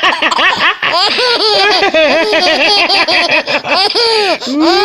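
Baby laughing: a long run of quick, high-pitched giggles one after another, with a brief pause about four seconds in.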